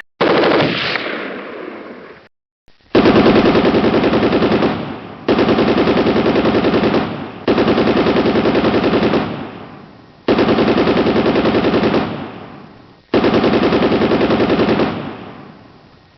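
Machine-gun fire: a first sound fading out over about two seconds, then five long bursts of rapid automatic fire, each starting loud and trailing off.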